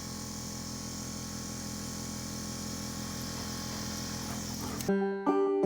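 Air compressor running with a steady hum and a fast low pulsing. About five seconds in it cuts off abruptly and banjo music begins.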